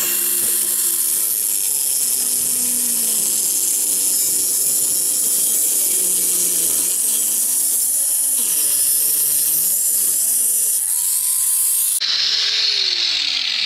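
Handheld power tool buzzing at high speed as it scores a cut through a davit's metal plate, its pitch shifting with the load. The high buzzing stops abruptly near the end.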